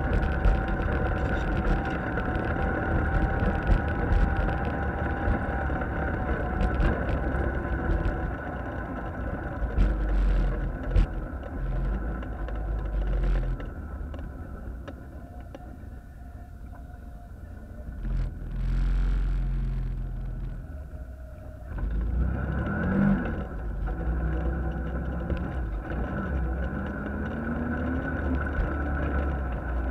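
Off-road vehicle's engine running while driving over a rough dirt and gravel trail, with scattered knocks from the ground. The engine drops back for a few seconds near the middle, then picks up again with rising revs.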